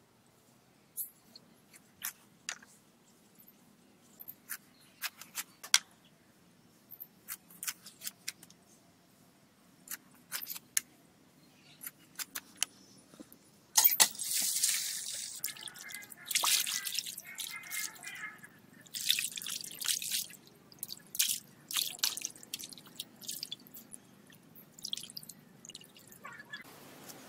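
Blade scraping and cutting a fish, a string of short sharp scrapes and clicks. About halfway through, water from a hand pump gushes and splashes into a metal basin, followed by splashing as fish pieces are washed by hand in the water.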